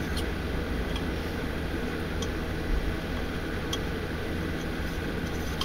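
A few faint light clicks of small metal parts of a knife maker's blade vise being handled during assembly, over a steady low rumble.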